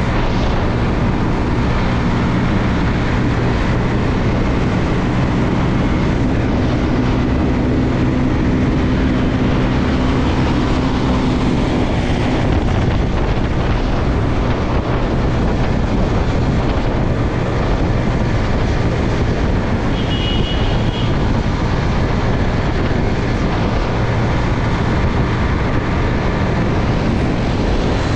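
Bajaj Pulsar NS200's single-cylinder engine running steadily while riding at road speed, with wind rush on the microphone.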